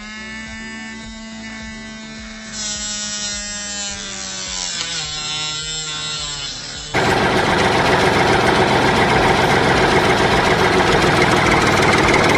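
Small electric motor spinning a mini circular saw blade, a steady hum that drops in pitch about five seconds in. About seven seconds in, a much louder harsh noise starts abruptly and runs on as the blade cuts into the plant.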